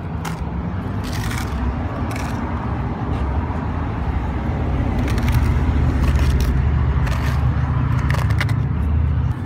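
A small flat object scraped by hand through loose gravelly dirt in a handful of short, scratchy strokes. Beneath it runs a steady low rumble that grows louder about halfway through.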